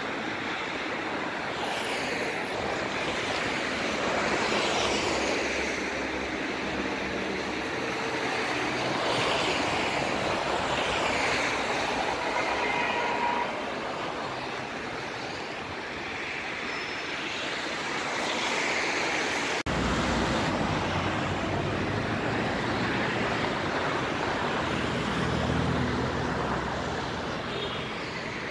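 City road traffic passing: a steady noise of cars and heavier vehicles that swells and fades as they go by, with an abrupt change about two-thirds of the way through.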